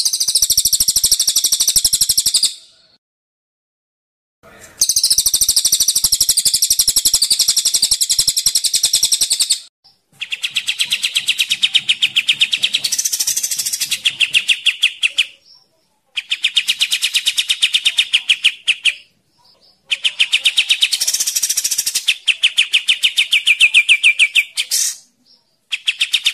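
Recorded song of the cililin and kapas tembak songbirds: bursts of fast, rattling trills two to five seconds long, separated by brief gaps. The first two bursts are higher-pitched and the later ones lower and more even.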